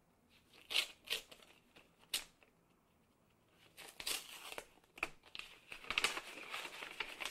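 Paper envelope being opened and a folded letter pulled out and unfolded by hand: a few short paper rustles, then steadier crinkling of paper from about four seconds in.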